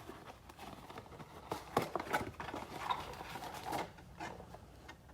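Trading card packs and cardboard packaging being handled: a few scattered light taps and clicks with faint rustling.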